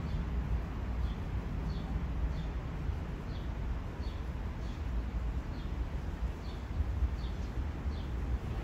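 Steady low outdoor rumble, with a small bird giving faint, short high chirps over it, roughly once or twice a second.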